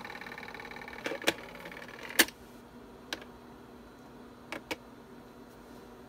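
Floppy disk drive of a 386 PC buzzing rhythmically as its head steps and reads, stopping after about two and a half seconds, with several sharp clicks, the loudest about two seconds in, over a steady low hum.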